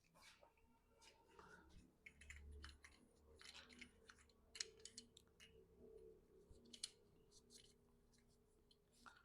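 Faint, scattered clicks and light taps of small parts being handled, over a faint steady hum.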